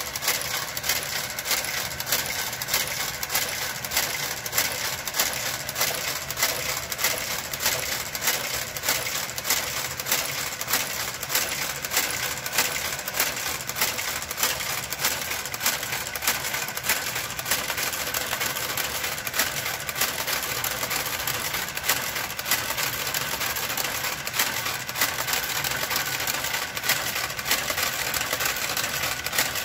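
Brother KG-93E garter carriage running slowly along a knitting machine's needle bed: a steady motor whir with a sharp click repeating evenly, roughly once or twice a second, as it works the stitches.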